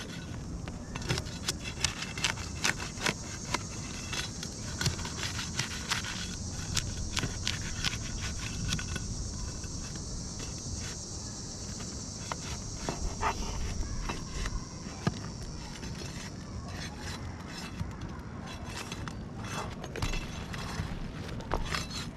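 Irregular clicks, knocks and scrapes of a hand tool working on asphalt ridge shingles as the roofing nails are pried loose, over a steady high hiss that fades out near the end.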